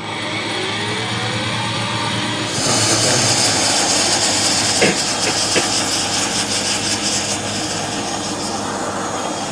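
Jakadofsky Pro XL model turbine of a large scale RC helicopter starting up. A whine rises in pitch over the first couple of seconds, then at about two and a half seconds in a loud, jet-like hiss sets in and holds steady as the turbine runs up, with a few short clicks near the middle.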